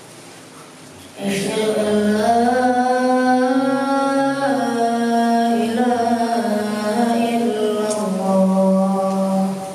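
A man's voice chanting one long, drawn-out melodic phrase. It starts about a second in, holds long notes that step and glide slowly in pitch, and stops near the end.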